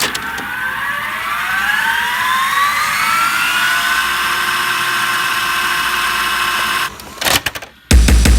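Drum and bass track in a build-up: a machine-like synth sweep rises in pitch for about four seconds and then holds. It cuts off, stutters briefly, and the heavy bass and drums of the drop hit just before the end.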